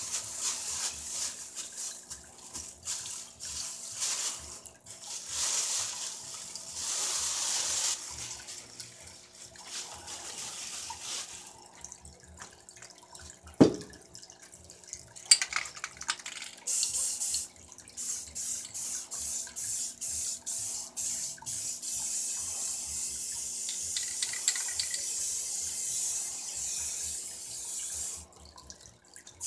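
Aerosol spray-paint cans hissing, in many short bursts and then a longer steady spray that stops a second or so before the end. A sharp knock with a brief ring comes about fourteen seconds in.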